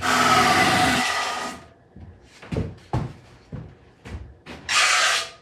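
A wooden piece sanded against a disc sander's disc that is coasting, not switched on: a loud sanding rasp that dies away over about a second and a half as the disc slows. A few light knocks of the piece being handled follow, and near the end a second short rasp.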